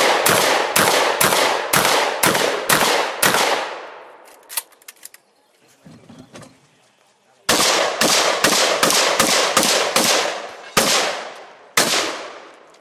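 Competition shotgun fired in rapid strings, each shot cracking and ringing out: about eight shots roughly half a second apart at the start, a pause with a few light clicks, then about nine more from about halfway through, spacing out toward the end.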